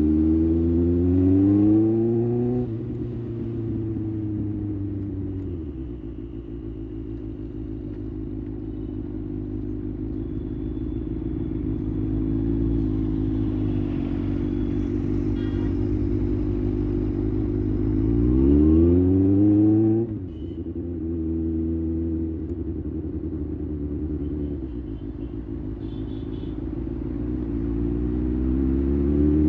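2024 Kawasaki ZX-6R's inline-four engine under way: the revs climb, fall sharply at a gear change about 3 s in, run fairly steadily, climb again and drop suddenly at another shift about 20 s in, then rise once more near the end.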